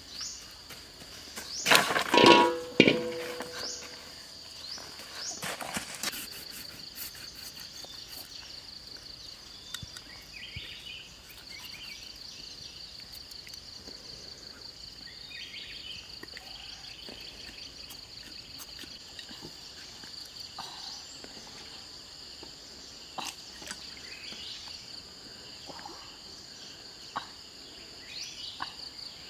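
Insects droning steadily at a high pitch. About two seconds in comes a loud clatter with a brief ringing, and a single sharp knock follows a few seconds later.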